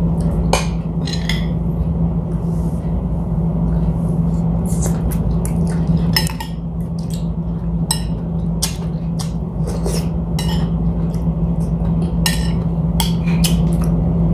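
Spoon and fork clinking against a plate and a ceramic soup ladle knocking against a bowl, in scattered light clinks, over a steady low hum.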